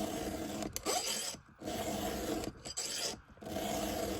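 Round file rasping across a chainsaw chain's cutter tooth in about four hand strokes, sharpening the cutter and working out a curve in its edge.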